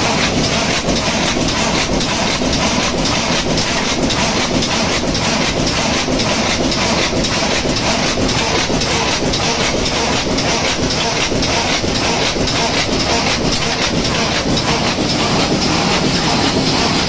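Automatic flat bed die cutting machine (800 × 620 mm sheet size) running at high speed: a loud, steady, fast, even mechanical clatter.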